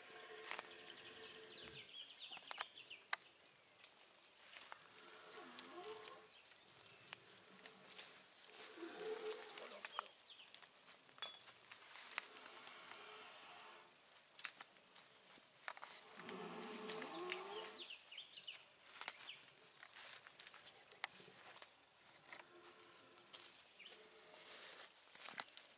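Steady high-pitched insect shrilling from the forest, with scattered soft clicks and a few faint wavering tones coming and going.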